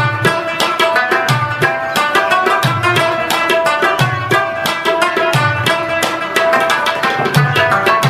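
Background music with a steady hand-drum rhythm: quick drum strokes over a repeating cycle, with a deep stroke that bends in pitch about every second and a quarter.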